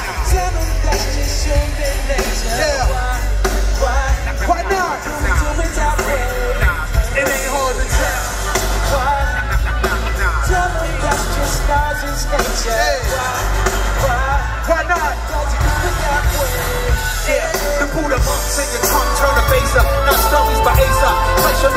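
Live symphony orchestra over a heavy hip-hop beat, playing loud through a concert PA with singing over it.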